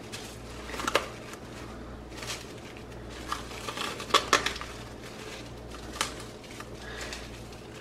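Plastic cling wrap crinkling and crackling in scattered bursts as it is pulled tight and pressed down around the sides of a small bowl.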